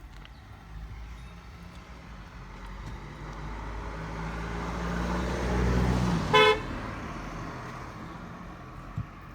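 A passing motor vehicle's engine grows louder over about six seconds. It gives one short horn toot as it goes by, then fades away.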